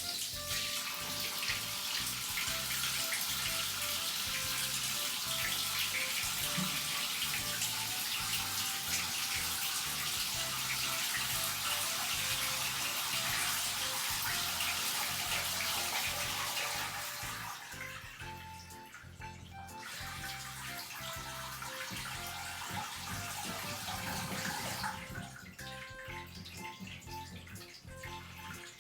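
Water running from a tap into a bathtub, a steady rush that stops about two-thirds through, comes back for a few seconds, then stops again near the end.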